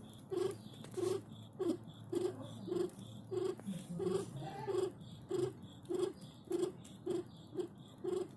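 Domestic cat purring in short, even pulses about twice a second, from a mother cat lying with her newborn kitten nursing.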